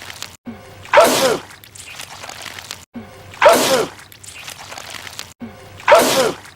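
A man's loud comic sneeze, the same one looped three times about two and a half seconds apart, each with a brief cut to silence just before it.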